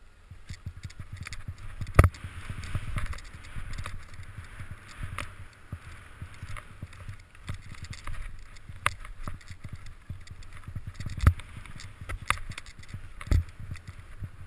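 Skis running through fresh powder snow: a steady hiss of snow with a low rumble beneath, broken by several sharp knocks, the loudest about two seconds in and again near the end.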